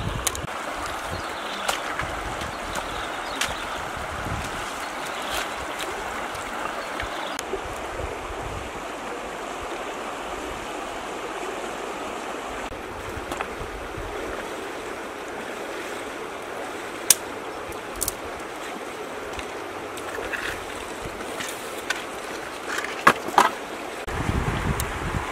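Steady rushing of a shallow river flowing over rocks, with a few sharp clicks and knocks in the second half.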